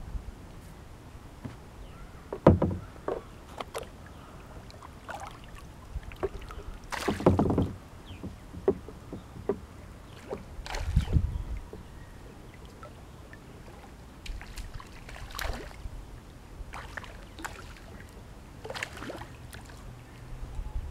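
A kayak being moved on the water: irregular splashes and knocks against the hull, a few seconds apart, over a faint low rumble.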